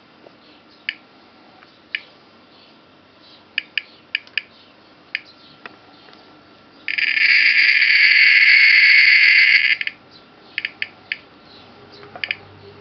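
Geiger counter clicking irregularly, a few scattered clicks a second. About seven seconds in, the clicks run together into a loud continuous hiss for about three seconds, a very high count rate from the radioactive torbernite, then fall back to scattered clicks.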